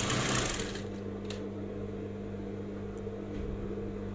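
Industrial sewing machine stitching through thin fabric, stopping under a second in; a steady low hum carries on after it stops, with one sharp click about a second later.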